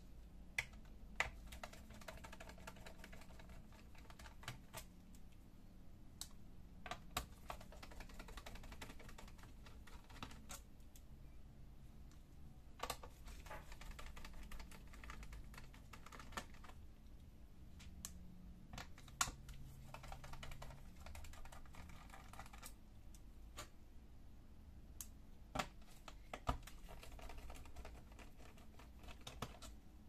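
Small screwdriver undoing screws in a plastic laptop bottom panel: faint stretches of fine rapid ticking and scraping as the screws turn, broken by scattered sharp clicks of the tool against the plastic.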